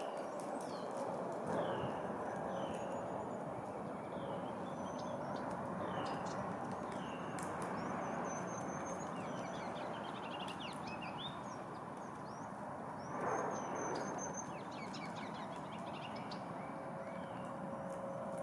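Several wild songbirds calling and singing in spring woodland: one repeats a short downslurred whistle over and over, while others give high, thin notes and trills. A steady low rustling runs underneath, with a brief louder rustle about thirteen seconds in.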